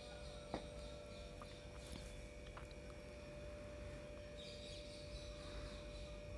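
Quiet outdoor background: a faint steady hum with a small click about half a second in, and faint distant bird chirps.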